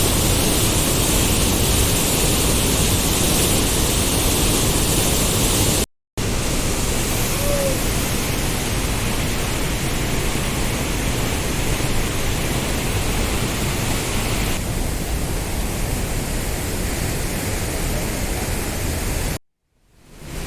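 Steady, loud rushing of flowing water, with two abrupt cuts to silence, about six seconds in and again near the end.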